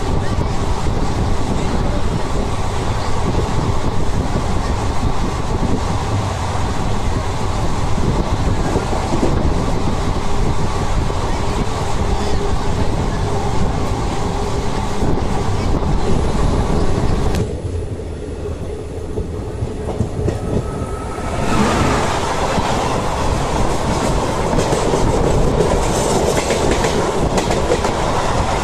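Passenger train running at speed, heard from aboard: wheels clattering over rail joints under a steady rumble and rush of air. The sound turns quieter and duller for about four seconds past the middle, then comes back full.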